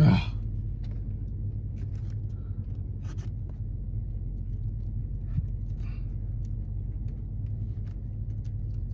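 Car engine idling, a steady low rumble, with a loud thump right at the start and a few faint clicks.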